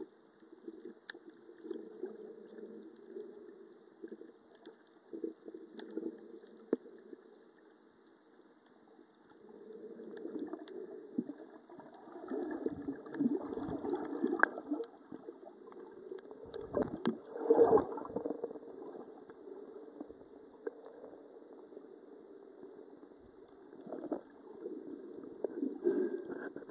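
Muffled underwater sloshing and gurgling picked up by a camera held below the surface, swelling louder through the middle stretch, with scattered small clicks.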